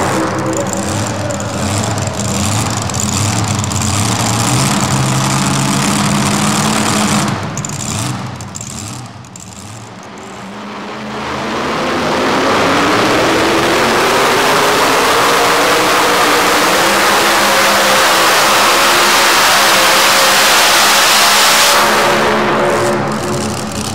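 Engines of super modified two-wheel-drive pulling trucks. First a supercharged engine runs after its pull. After a brief lull, another truck's engine rises steadily in pitch as it launches and pulls the sled at full throttle, then backs off near the end as it is flagged to stop.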